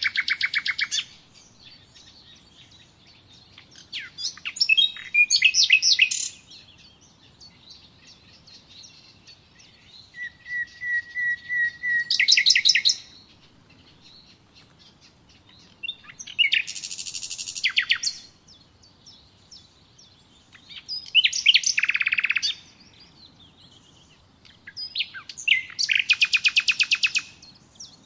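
A songbird singing in short phrases of fast, high trills and chirps, each one to three seconds long, with pauses of a few seconds between them.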